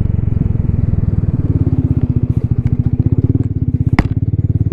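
Yamaha XMAX 300 scooter's single-cylinder engine running under way, its firing pulses throbbing evenly and rising slightly in pitch partway through. A sharp knock about four seconds in.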